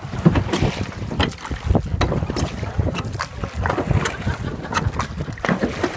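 Rowboat being rowed: a wooden oar splashing through the water and knocking in its metal oarlock at irregular strokes, with wind rumbling on the microphone.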